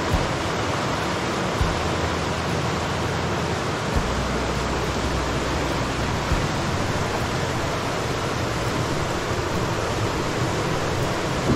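Whitewater rapids rushing steadily beside the trail, with a few soft low thumps.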